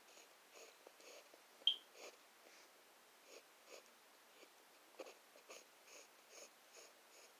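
Faint scratching of a pen drawing on lined notebook paper, in short irregular strokes. There is one brief high squeak a little under two seconds in.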